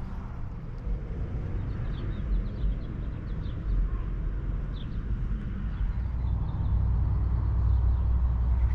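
Wind buffeting the camera microphone: a steady low rumble that grows stronger near the end.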